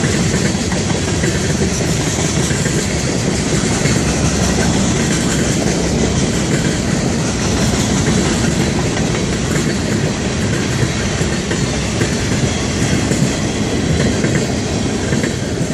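Freight cars of a passing Florida East Coast Railway train rolling by close at hand, a loud steady clatter of steel wheels on the rails.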